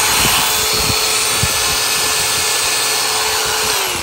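Makita XAG04 18V brushless cordless angle grinder running free with no load at a steady pitch. Near the end it is switched off and its whine falls away as the motor spins down.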